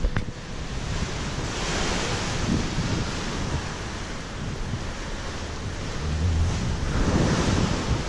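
Wind buffeting the microphone over choppy water slapping against a concrete wall: a steady rushing noise with a low rumble that swells twice.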